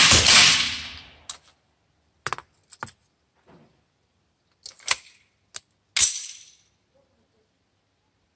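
A suppressed .22 LR pistol's last shot rings off concrete and fades in the first second. Then come a series of sharp metallic clicks and clatters as the pistol, its slide locked back, is handled and reloaded, ending in a louder clack about six seconds in as the slide closes.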